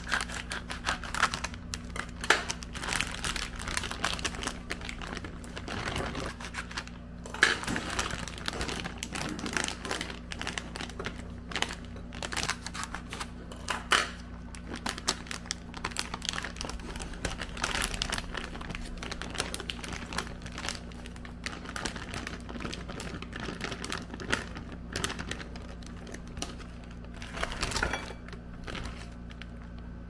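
Glossy plastic food bags of seafood balls and fish balls crinkling and rustling in irregular bursts as they are cut open and handled, over a steady low hum.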